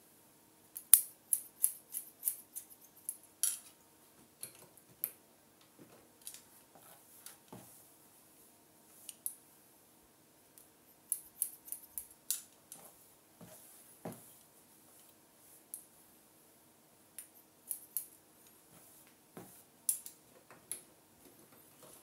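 Hairdressing scissors snipping through held sections of hair in runs of quick, sharp snips with pauses between, chop-cutting the ends.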